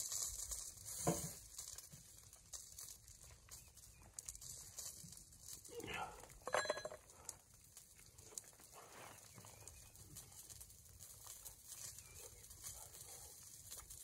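A few short animal calls, about one second in and twice around six seconds in, over a faint steady hiss.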